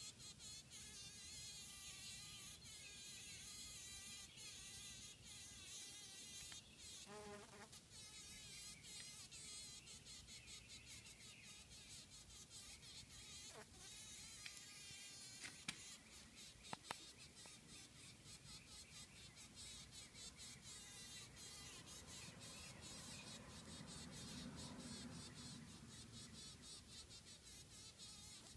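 Honey bee buzzing faintly and muffled, in fits and starts, as it struggles while caught in a spider's web. A few sharp clicks a little past halfway.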